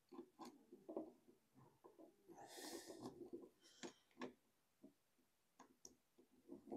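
Faint ticks and a short scrape of a screw being turned by hand to fix a plastic pipe clip to the wall.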